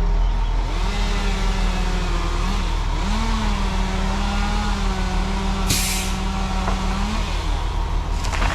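Engine of the tree crew's machinery running under load, its pitch stepping up about three seconds in and dropping back about seven seconds in, over a deep steady hum. A short hiss of released air near six seconds.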